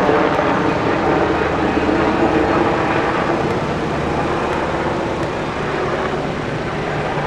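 Aircraft passing overhead: a loud, steady engine noise that fades slowly.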